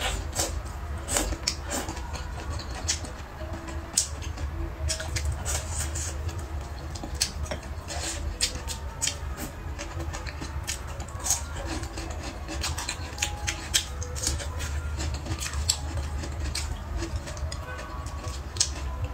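Close-miked eating: chewing, lip smacks and wet mouth clicks, many a second, as noodles and hot pot vegetables are eaten, with background music underneath.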